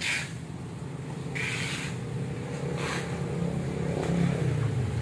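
A motor vehicle's engine running, growing louder to a peak about four seconds in and then easing off, as if passing by.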